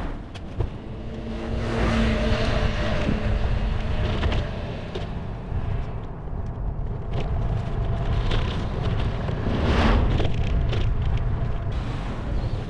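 Road traffic passing, with one car going by about two seconds in and another near ten seconds, over a steady low rumble of wind on the microphone.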